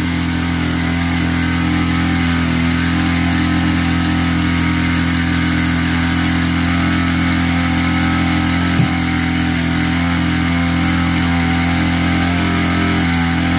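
A small engine running steadily at a constant speed, a level droning hum, with one short knock about nine seconds in.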